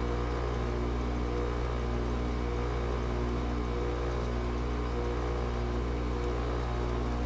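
GE 5,050 BTU window air conditioner running steadily after a cold start in −4 degree cold: a constant low compressor hum with a fan noise over it.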